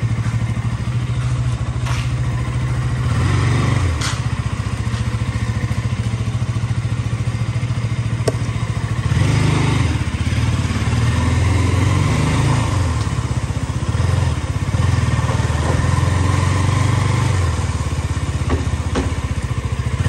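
KTM RC 390's single-cylinder engine running steadily at low revs, its pitch rising and falling in a few blips of throttle about three seconds in and again around the middle. A few sharp clicks are heard near the start.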